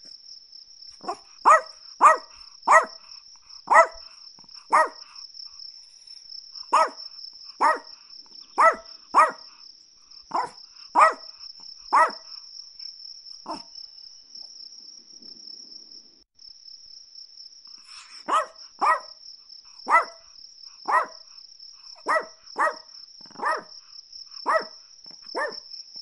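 Chihuahua giving sharp, high-pitched single barks at an irregular pace, about two dozen in all, pausing for a few seconds past the middle. A continuous high-pitched cricket-like trill runs behind the barks.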